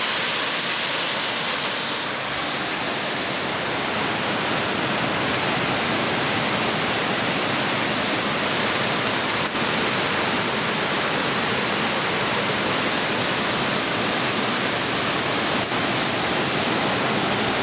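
Waterfall pouring into a rocky gorge: a steady rush of falling water.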